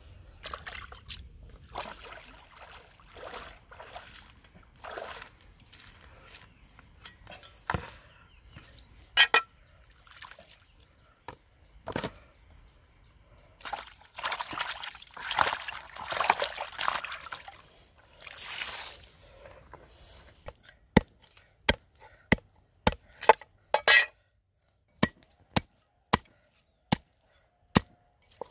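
Hands rubbing and sloshing a raw pig's leg in a plastic basin of water, with splashing and trickling. About three-quarters of the way through it gives way to a cleaver chopping through the leg on a wooden chopping block: sharp strikes, roughly two a second.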